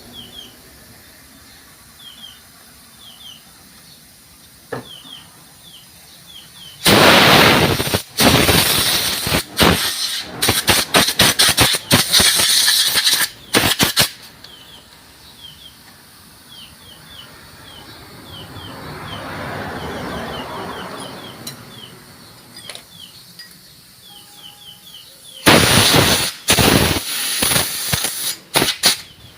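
Short, repeated hissing blasts of a pressurised cleaning jet, in two long runs of pulses, blowing clutch-plate debris out of a motorcycle clutch housing. Small, quick bird chirps repeat faintly between the blasts.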